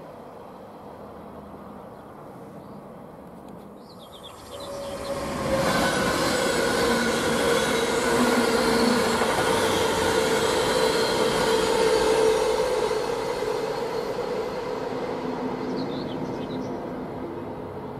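Long multi-car passenger train passing close by on an electrified main line. It swells in about five seconds in and holds loud, with a steady whine over the rumble of the wheels, then fades away over the last few seconds.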